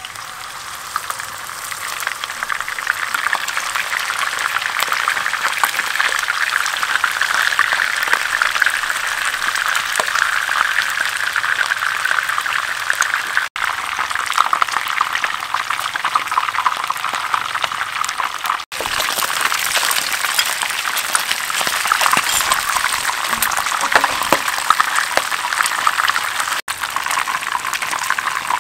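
Fish steaks sizzling in hot oil in a frying pan, a loud, dense crackle that begins as the fish goes in. The sound breaks off briefly three times.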